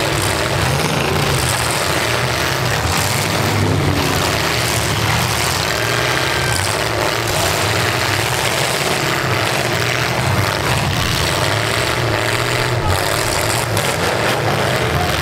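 Several demolition-derby pickup truck engines running hard and revving, rising and falling in pitch, as the trucks push against one another.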